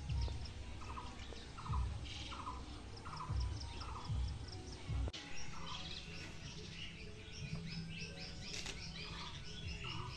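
Birds chirping and calling, one of them repeating a short trilled call about once a second, with low rumbles in the first half.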